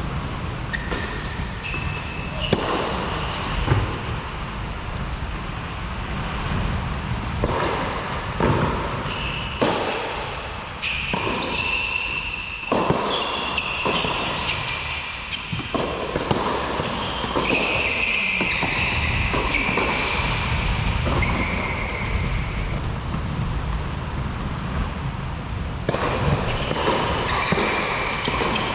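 Tennis rally on an indoor court: repeated sharp racket strikes and ball bounces, ringing in a large hall, over a steady low rumble. Short high-pitched tones sound now and then between the hits.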